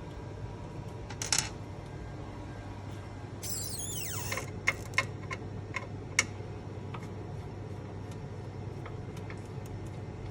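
Small metal screws and a screwdriver handled on a microscope stage: a short scrape, then a few light, sharp metallic clicks and ticks as the stage screws are undone and set down, over a steady low equipment hum.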